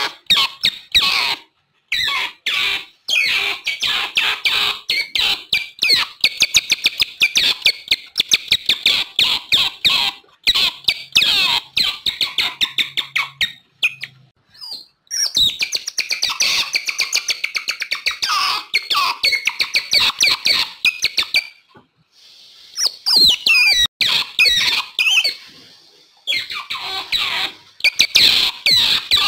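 Otters calling: rapid, high-pitched chirps and squeaks in long runs, broken by a few short pauses.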